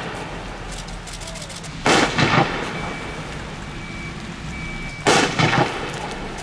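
Firework rockets bursting with loud bangs, twice about three seconds apart, each bang a quick run of two or three cracks with an echo.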